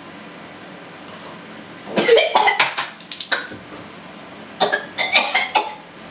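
A boy coughing and gagging in two bouts, one about two seconds in and another near the end, his reaction to swallowing very strong, bitter tea.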